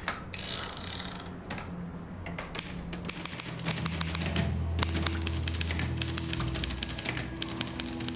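Old typewriter being typed on: keys strike in quick runs of clicks, sparse at first and then fast and continuous from about three seconds in, over a low steady musical drone.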